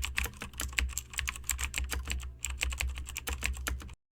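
Rapid, irregular light clicks and taps, many a second, over a low steady hum; everything cuts off abruptly at the end.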